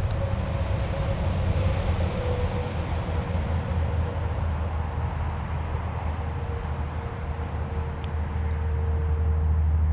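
Domestic cat purring steadily, close up, while it is handled.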